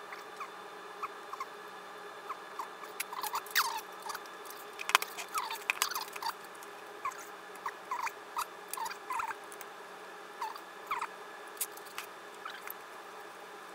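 Fast-forwarded workbench sounds from handling tools and amplifier parts during a power-pack swap: a rapid scatter of clicks and taps mixed with short chirping glides, thickest in the first half.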